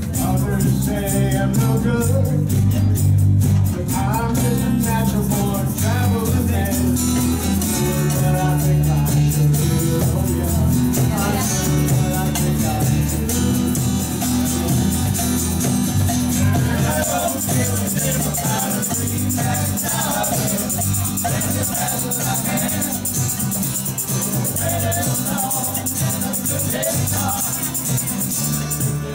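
Live folk band playing: strummed acoustic guitars, electric bass and several voices singing together. A tambourine is shaken steadily from about halfway in.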